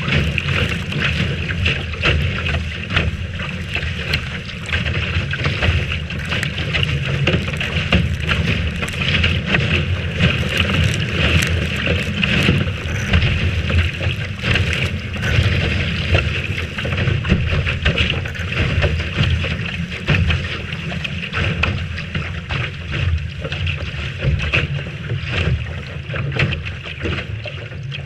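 Strong wind buffeting the microphone over the rush of water along the hull of a Lightning-class sailing dinghy sailing in a big breeze: a steady heavy rumble and hiss, crackling throughout.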